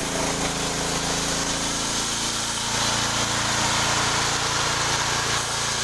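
Engine of a home-built sawmill running at a steady speed.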